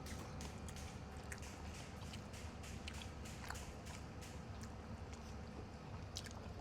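Faint chewing with many small crunching clicks, someone eating crispy fried radish cake.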